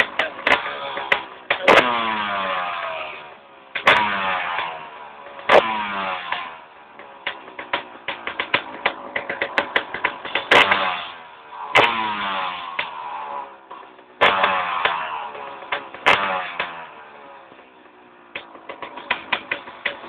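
2006 Suzuki RM250 single-cylinder two-stroke dirt-bike engine running, its throttle blipped about seven times. Each blip revs the engine up sharply, then lets it fall away to a rough, popping idle.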